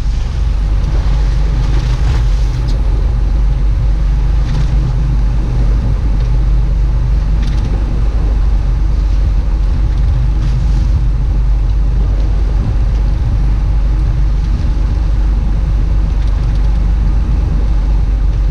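Fishing boat's engine running steadily, a loud low drone with the rush of wind and water over it.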